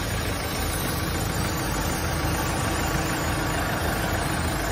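Engines of heavy lifting machinery, a forklift and a mobile crane, idling steadily.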